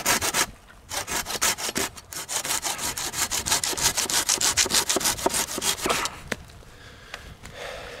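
Folding hand saw cutting through a birch branch in quick back-and-forth strokes. There is a short pause about a second in, then a fast even run of rasping strokes that stops about six seconds in.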